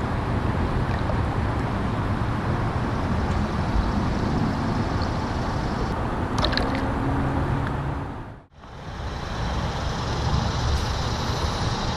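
Steady, uneven low rumble of wind buffeting the camera microphone, briefly cutting out past the middle.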